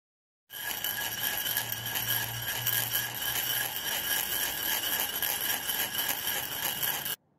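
Logo-intro sound effect: a dense, bright wash with several steady high tones, starting about half a second in and cutting off abruptly just before the end.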